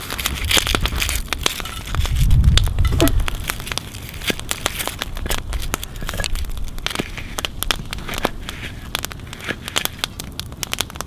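A knife peeling and slicing an onion on a wooden log: irregular crisp crunching and crackling of the onion skin and flesh, with a brief low rumble about two seconds in.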